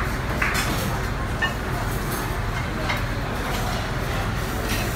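Busy restaurant dining-room ambience: a steady low rumble with indistinct background voices and a few light clinks of dishes and cutlery.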